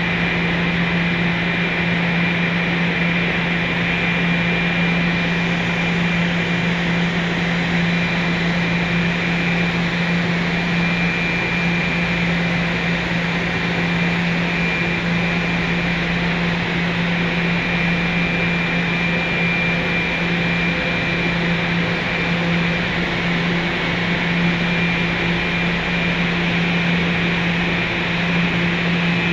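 Steady mechanical hum and rushing noise in a subway tunnel, with a low drone and a thin high whine held throughout.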